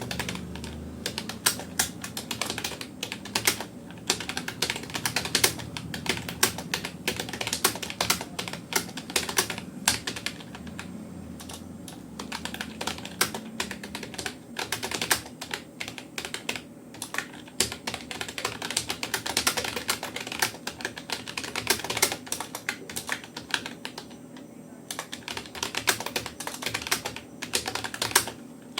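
Rapoo computer keyboard being touch-typed at about 57 words per minute: a rapid, continuous patter of key clicks, with brief lulls about 11 and 24 seconds in.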